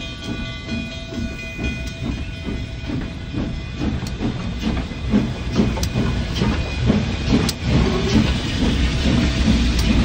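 Double-headed Durango & Silverton K-28 2-8-2 narrow-gauge steam locomotives passing close by at slow speed: rhythmic exhaust chuffs and wheel clacks, with steam hissing from No. 476's cylinder cocks and the hiss growing toward the end. A steady high chord-like tone stops about two seconds in.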